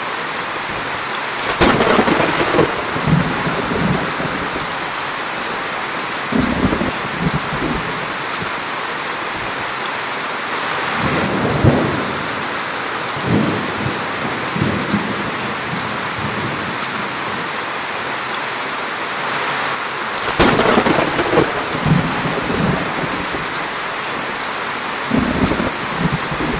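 Heavy rain pouring steadily onto plants and wet ground, with thunder rumbling several times over it. The loudest rolls come about two seconds in and again about twenty seconds in.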